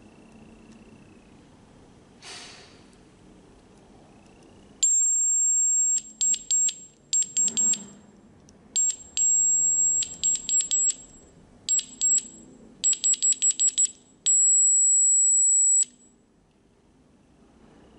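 Homemade Morse code oscillator's speaker beeping a single very high-pitched tone, keyed on and off by a microswitch in long and short beeps (dashes and dots), including a quick run of about five dots. It starts about five seconds in with a long dash and ends with one about one and a half seconds long. Before that, a faint lower tone fades out and a brief rustle sounds.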